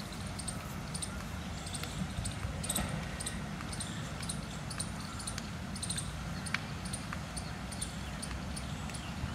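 Outdoor park ambience: a steady low rumble of wind on the microphone, with short high bird chirps scattered every second or so over a soft hiss of distant fountain jets.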